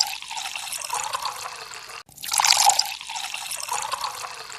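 Water pouring from a jug, heard twice with a brief break about two seconds in. Each pour starts loudest and then trickles on steadily.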